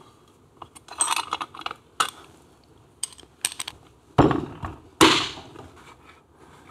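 Small metal clicks and clinks of hand tools on the screws of a Tiger Cub engine's aluminium side cover as the cover is taken off, then two loud knocks about four and five seconds in, the second ringing briefly.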